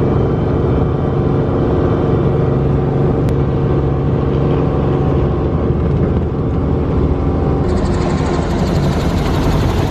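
A vehicle's engine running loud and steady with a low drone, the sound picking up a brighter, hissier edge near the end.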